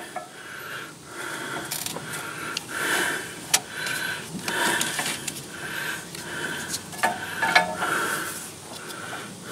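Handling noise from hands groping among the belt, pulleys and frame under a riding mower: a soft rasping that repeats about every two-thirds of a second, with scraping and a few sharp clicks.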